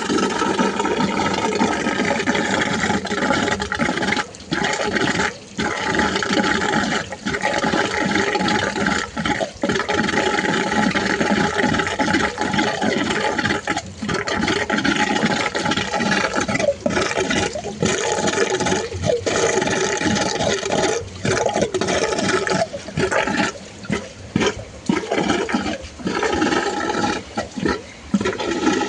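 Loud, continuous rushing and gurgling of water in plumbing, broken by frequent brief, irregular dips.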